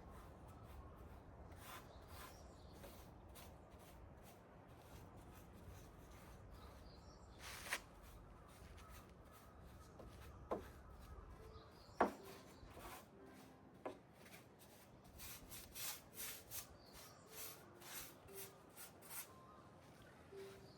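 Faint hand work on a wooden board: quiet rubbing strokes, with a few light knocks and, in the second half, a run of soft strokes about two a second.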